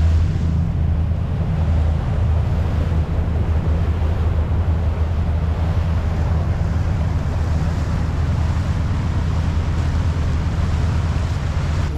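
Trawler's diesel engine running steadily underway, a constant low drone, with wind on the microphone and water noise over it.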